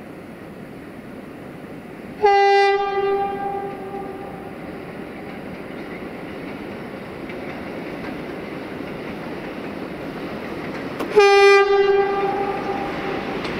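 Two single-pitch blasts from the horn of a Romanian 060-EA (LE5100) electric locomotive, about nine seconds apart. Each is loud at the start and trails off over about two seconds. Beneath them the running noise of the approaching freight train slowly grows louder.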